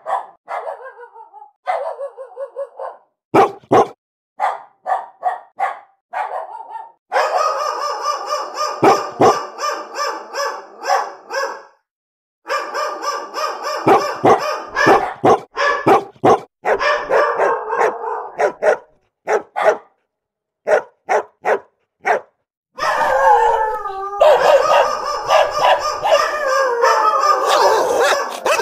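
Angry dogs barking: runs of sharp repeated barks in separate bursts broken by short silences. Near the end come longer whining cries that slide down in pitch, mixed in with the barking.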